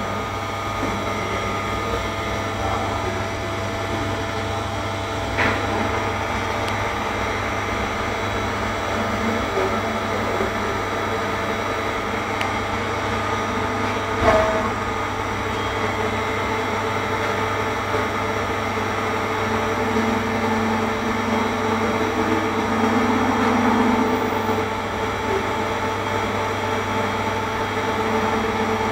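A machine running with a steady hum of several held tones, with a sharp click about five seconds in and another about fourteen seconds in.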